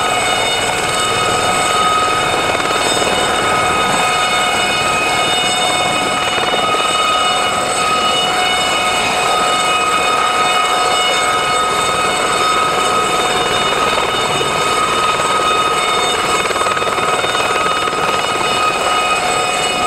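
Aérospatiale Gazelle helicopter hovering: the steady high whine of its Turbomeca Astazou turbine and Fenestron shrouded tail rotor over the rush of the main rotor, with several steady high tones.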